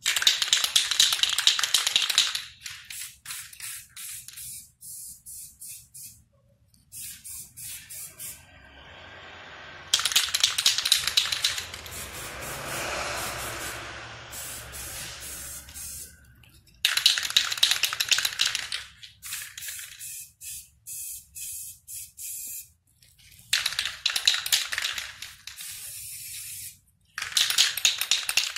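Aerosol spray paint can hissing onto a canvas in repeated bursts: several long sprays of two to three seconds, with rapid short spurts between them.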